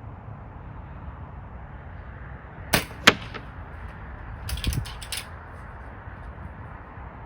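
Gamo Whisper .22 break-barrel air rifle fired once: two sharp cracks about a third of a second apart, then a quick run of clicks with a dull thump about a second and a half later.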